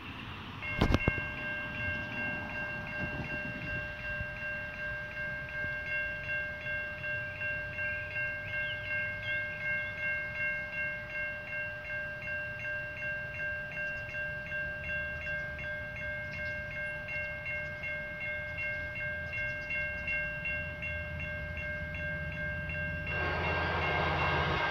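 A railroad crossing's electronic bell starts with a sharp click and rings steadily, about two dings a second, as the signals activate for an approaching train. Near the end a louder train horn comes in over it, led by an F59PH diesel locomotive, with the engine's low rumble underneath.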